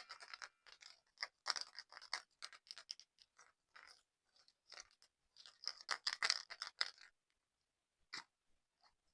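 Slime being squeezed and stretched by hand: a run of small sticky pops and clicks in quick clusters, broken by short pauses, with only a few single pops near the end.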